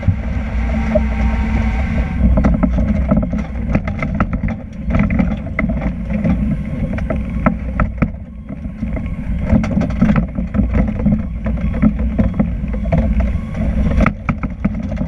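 Pierce tiller ladder truck under way, heard from its rear tiller cab: a steady heavy low rumble of engine and road, with frequent rattles and knocks of the cab and equipment.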